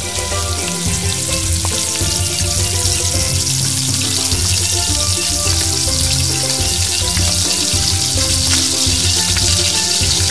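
Battered leaf pieces frying in hot oil in a small metal bowl, a steady sizzle.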